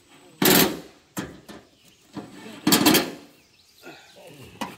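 Packaged metal gazebo parts being handled and shifted among cardboard and plastic wrapping: two loud scraping rustles, one near the start and one about three seconds in, with a few light knocks between.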